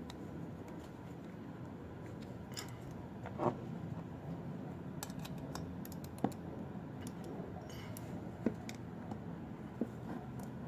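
A few sharp, separate clicks and taps, spaced a couple of seconds apart, from a screwdriver and the metal parts of a replacement jump-starter battery clamp as a screw is driven in, over a steady low background hum.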